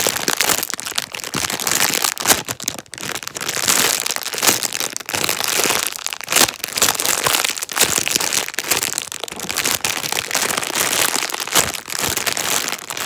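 Plastic packaging crinkling and crackling as it is handled, a dense run of sharp crackles with a few brief pauses.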